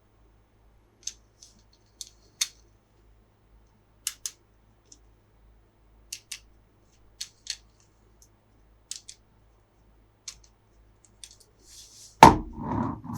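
Scissors snipping through toy packaging: a string of short, sharp snips, often two close together. Near the end comes a much louder knock with a short ringing clatter.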